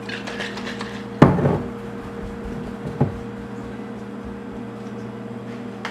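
A kitchen cupboard door knocking shut about a second in, then a lighter click about two seconds later, over a steady low hum.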